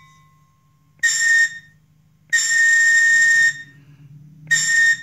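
Caboose air-whistle sound effect played by an Athearn Genesis caboose's sound decoder through its small onboard speaker. It gives three blasts, short, long, short, with a faint steady low hum underneath.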